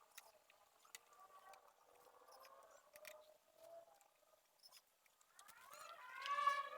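Stepper motors of a CoreXY 3D printer whining as the axes move, with a few light clicks; about five seconds in the whine sweeps up in pitch and gets louder as a move speeds up.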